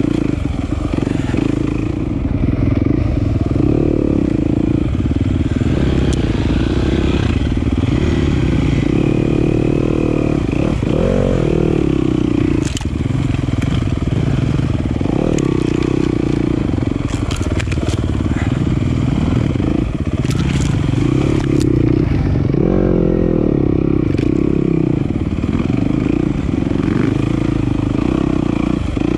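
Single-cylinder enduro dirt bike engine running under load on a trail, its revs rising and falling again and again, with a few sharp clacks mid-ride.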